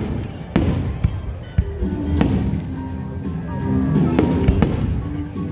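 Fireworks going off: a handful of sharp bangs over a low, continuous rumble of bursts, with music playing alongside that grows clearer after the first couple of seconds.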